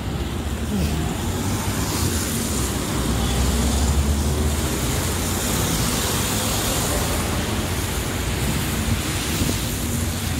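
Street traffic on a wet road: tyres hissing on the wet asphalt, with a heavy vehicle's low rumble swelling a few seconds in as a bus passes close by.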